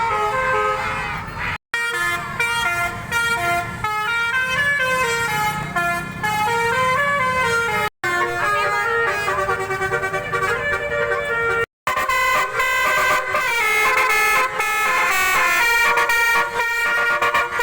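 Telolet multi-tone musical horns playing quick stepping melodies, one note after another in several overlapping tones. The sound is broken by three brief silent gaps.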